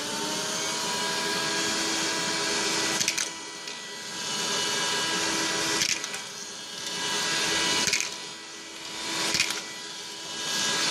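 JACO JSP-023 handheld cordless vacuum cleaner running while sucking up coins. Its sound swells and dips several times, with a few sharp clicks.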